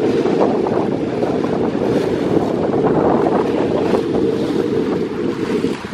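Steady wind buffeting the microphone over choppy sea water, a constant rough rumble.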